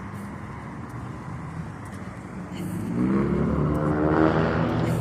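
A car accelerating, its engine pitch rising about three seconds in, over a steady low rumble of street traffic.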